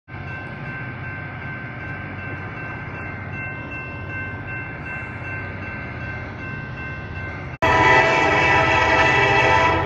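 Wheeling & Lake Erie locomotive 211 approaching, its horn sounding steadily over the low diesel engine rumble. About three-quarters of the way through, the sound cuts abruptly to a much louder, close-up horn blast.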